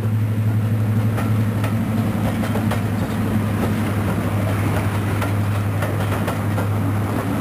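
Class 55 Deltic diesel locomotive's twin Napier Deltic two-stroke engines running with a steady low drone as it hauls its coaches away, with repeated clicks of the coach wheels over rail joints.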